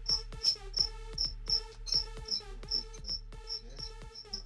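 A cricket chirping in a steady, even rhythm of nearly three short high chirps a second, over a faint steady hum.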